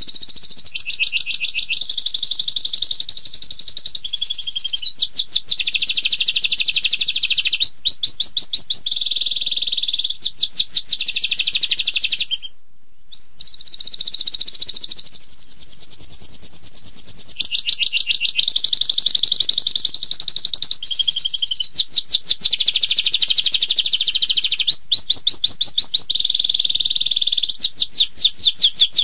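Domestic canary singing a long, continuous song of high, rapid trills. Each trill is held for a second or two before the bird switches to another, some a fast buzzing roll and some a run of separate sweeping notes, with one brief pause about twelve seconds in.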